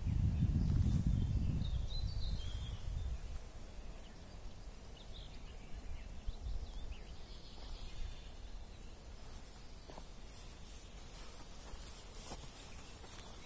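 Forest ambience with a few short bird chirps over a quiet background, a low rumble in the first couple of seconds, and faint footsteps on the forest floor in the last few seconds.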